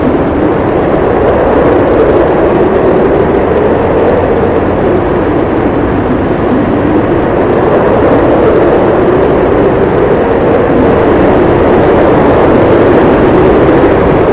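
Howling snowstorm wind: a loud, steady rush with a low howl that wavers up and down in pitch.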